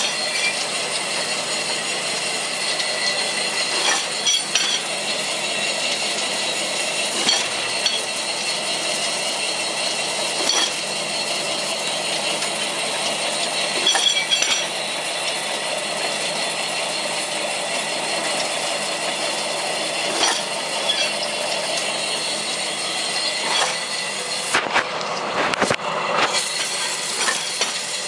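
Counter-stacker with paper interleaver running: a steady mechanical clatter of belts and mechanisms, with sharp clicks every few seconds.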